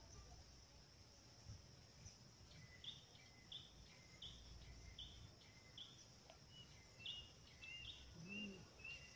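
Faint bird calls: a short note repeated about one and a half times a second, starting a couple of seconds in, over a steady high insect drone.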